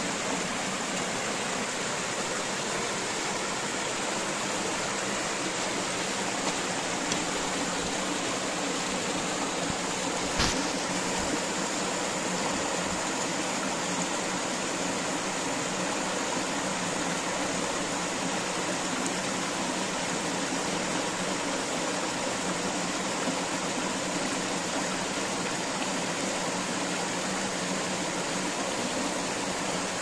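A small woodland waterfall and stream rushing steadily over rocks into a pool, with a single brief knock about ten seconds in.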